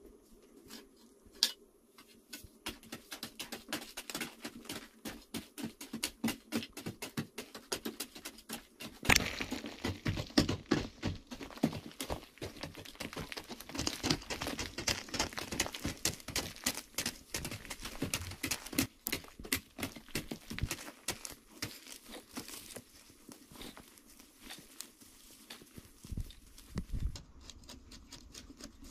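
Hand hoe chopping repeatedly into red clay soil, with loose earth crumbling and scattering. Quick, irregular strikes, several a second, starting about two seconds in.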